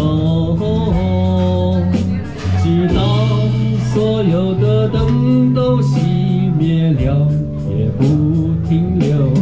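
Live band playing a slow Chinese folk-pop ballad: sung melody over electric bass guitar and electronic keyboards, with a steady beat.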